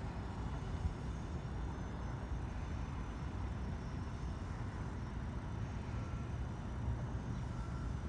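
Steady low rumble of outdoor urban background noise, with distant road traffic.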